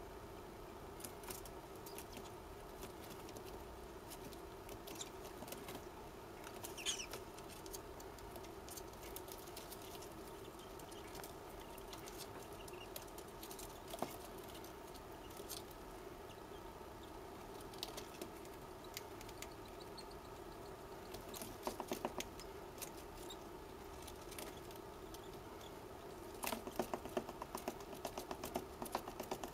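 Faint scratching and light tapping from a cockatiel chick over a steady low hum. There is a short high chirp about seven seconds in. Near the end come rapid runs of fast clicking chatter.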